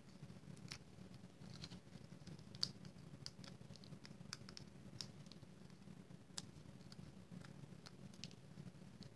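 Faint, irregular small clicks and ticks of fingernails picking the paper backings off foam adhesive dimensionals and handling a small cardstock piece, over a faint low hum.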